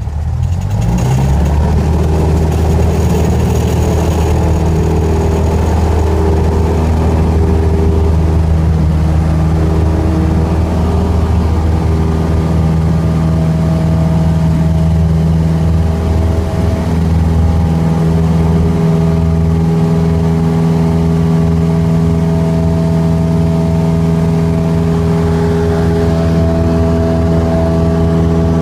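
Cessna 150's four-cylinder Continental O-200 engine and propeller going to full takeoff power, heard from inside the cabin: the pitch rises over the first second or so, then holds steady through the takeoff roll and climb-out.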